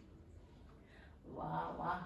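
Quiet room tone, then near the end a short voiced exclamation in two parts from a person.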